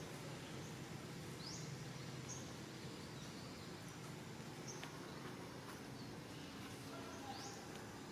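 Faint outdoor woodland background with a steady low hum and a few short, high bird chirps, two of them quick rising sweeps.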